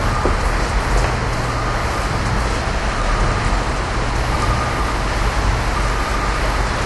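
Steady street traffic noise, a constant low rumble with no distinct events.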